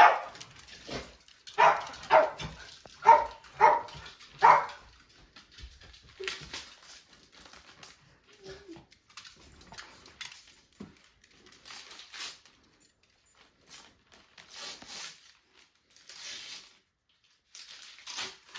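A pet dog barking, a run of about six short barks in the first five seconds, followed by faint scattered rustling.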